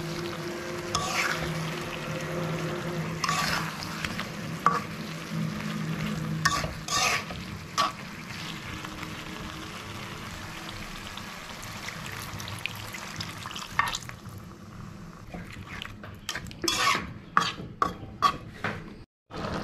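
Pointed gourd and egg curry sizzling in a metal pan while a metal spatula stirs it, scraping and knocking against the pan. The scrapes come in a quick run near the end.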